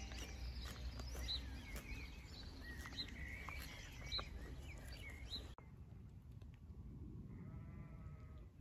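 Small birds chirping over a low rumble, then, after the sound drops quieter, a single sheep bleat near the end.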